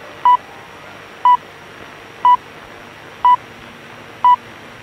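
BBC Greenwich Time Signal: five short pips exactly a second apart, the first five of the six pips counting down to the hour. They come over shortwave radio with a steady hiss between them.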